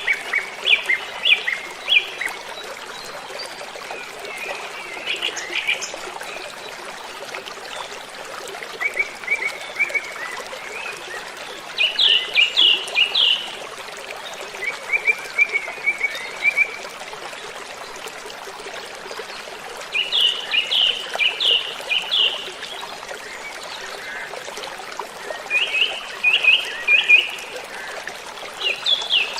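Steady rush of a waterfall, with a bird singing short phrases of quick, repeated high notes every few seconds.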